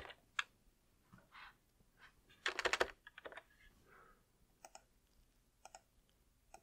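Typing on a computer keyboard: scattered keystrokes, a quick run of them about two and a half seconds in, then a few single clicks near the end.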